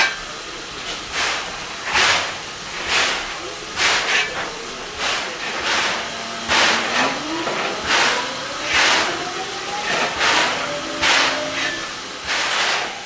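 JNR C11 2-6-4 tank steam locomotive pulling away slowly: steam exhaust chuffs about once a second over a steady hiss of steam.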